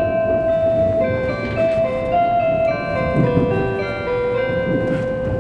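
A simple electronic melody of clear held notes, like a chime tune, playing over a low rumble; it stops just after the end.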